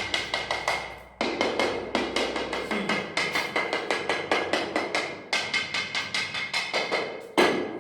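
Rapid tapping on ceramic tiles with a hard rod, several taps a second with a steady ringing tone: a tap test for hollow spots, meaning air gaps in the adhesive bed under the tiles.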